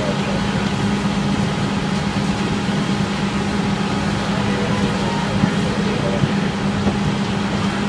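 A large engine running steadily: a constant low hum under a rushing noise, with no change in pitch.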